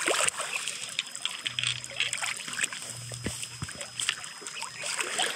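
Reservoir water splashing and trickling against a stone riprap bank, with many small clicks and ticks. A low hum runs for a couple of seconds in the middle.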